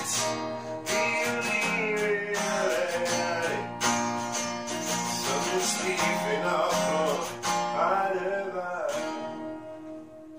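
Acoustic guitar (an Epiphone cutaway) strummed in steady chords while a man sings a melody over it. Near the end the singing stops and the strumming dies down to a ringing chord.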